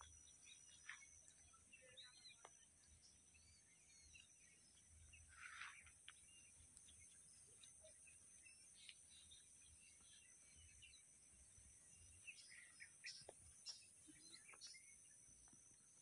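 Near silence with faint, scattered bird chirps over a steady high hiss; the chirps come more often about five seconds in and again near the end.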